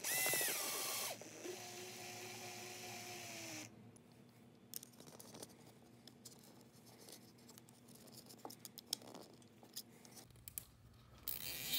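Hand assembly of a 3D-printer extruder: a whirring hum opens with a falling pitch, holds steady and cuts off after about three and a half seconds. Then come small scattered clicks and taps of screws, the driver and plastic parts being handled.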